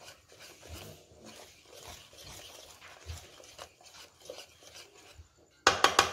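A whisk is stirring and scraping thick semolina cake batter in a plastic bowl, faint and uneven. Near the end a short burst of several loud, sharp sounds comes in over it.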